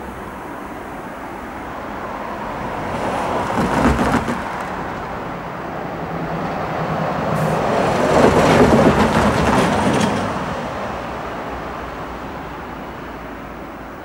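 Road traffic driving over a railway level crossing: a vehicle passes about four seconds in, then a box lorry rises to the loudest point from about eight to ten seconds and fades away.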